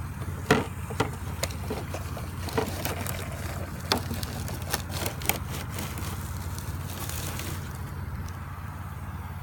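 A small motor runs with a steady low hum, while short sharp clicks and knocks come irregularly over it, most of them in the first six seconds.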